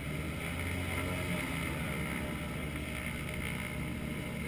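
Single-engine propeller plane taxiing at low power: a steady, low piston-engine drone with a rapid propeller throb.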